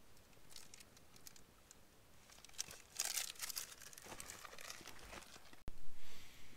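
Irregular crinkling and rustling, like something being handled, densest in the middle, with a sudden break near the end.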